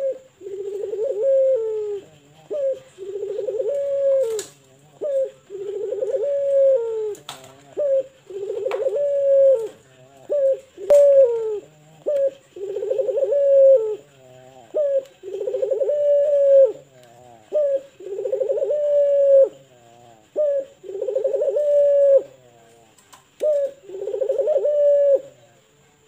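Barbary dove (puter) of the long-voiced 'pelung' type cooing over and over: a drawn-out coo of about a second alternating with a short note, repeated about a dozen times. A few sharp clicks fall in the first half.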